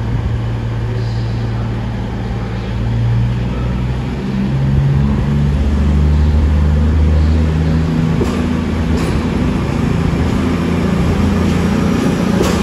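CrossCountry Class 220 Voyager diesel multiple unit pulling away. The underfloor diesel engines rise in pitch and loudness about four to five seconds in as it accelerates. A few sharp clicks follow in the second half as the cars pass.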